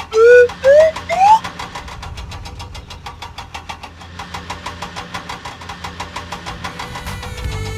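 Three short rising whistle-like tones, then a cartoon vehicle engine running with a fast, even knocking rhythm over a low rumble.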